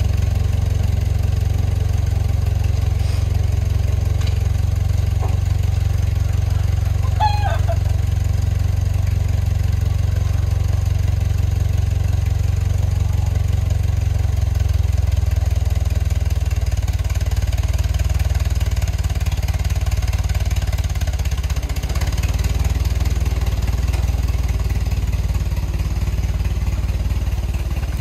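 Small tractor engine running steadily with a low, even drone while it tows a chicken coop.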